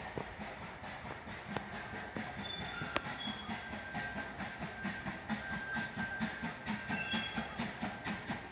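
Narrow-gauge steam locomotive approaching out of sight, its exhaust chuffing in a steady beat of about two to three a second that grows louder.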